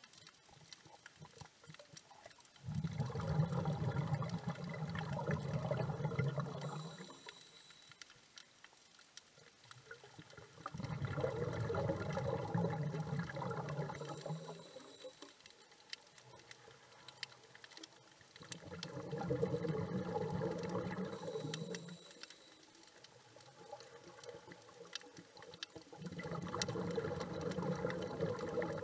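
Scuba diver breathing underwater through a regulator: four long exhalations of bubbles, each about four seconds and roughly eight seconds apart, each followed by a short high hiss as the diver breathes in. Faint scattered crackling clicks run in the quieter gaps.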